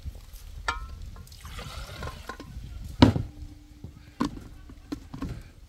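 Liquid pouring and trickling as blended pumpkin and coconut juice is strained. A sharp knock about three seconds in, with a few lighter clicks after it.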